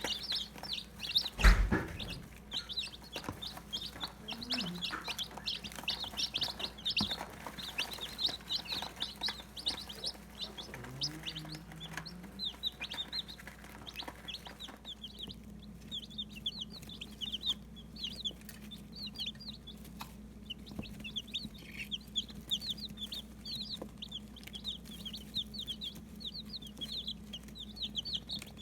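A brood of day-old Barred Rock and Cinnamon Queen chicks peeping constantly, many short high peeps overlapping. A single loud thump sounds about a second and a half in.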